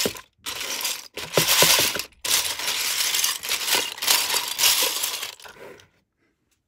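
Loose plastic LEGO bricks and plates clattering against each other and the plastic colander as a hand stirs them, in several bursts with short pauses between. The rattling stops a little before the end.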